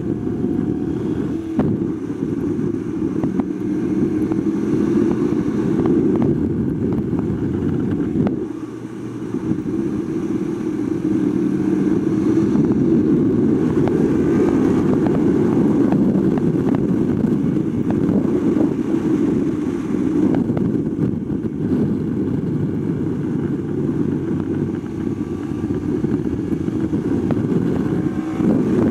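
2021 Yamaha R1's crossplane inline-four engine running at speed on a race track, mixed with heavy wind rush on the bike-mounted camera's microphone. The sound dips briefly about nine seconds in.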